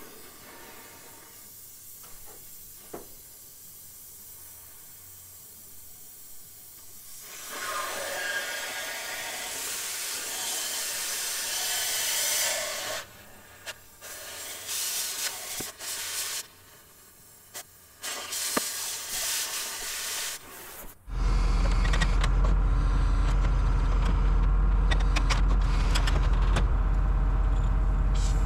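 Oxy-acetylene cutting torch hissing as it cuts, starting about a quarter of the way in and coming and going in spurts. About three-quarters of the way through, a wheel loader's diesel engine starts running loud and steady, drowning it out.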